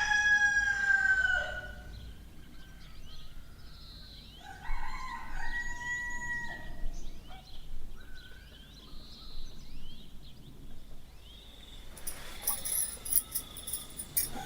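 Rooster crowing: a loud crow that trails off in the first second or two, then a fainter second crow about five seconds in, with small birds chirping. Near the end comes a burst of crackling noise.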